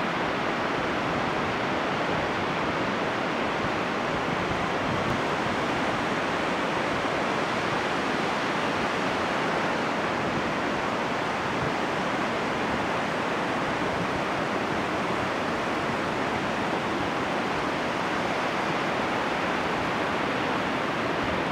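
Steady rush of surf on a sandy beach: a continuous even wash with no separate wave crashes standing out.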